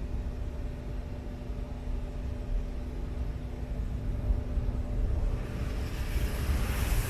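Automatic gantry car wash heard from inside the car's cabin: a low rumble from the machine while water jets spray against the windshield. A faint steady hum stops about five seconds in, and the hiss of the spray grows louder near the end.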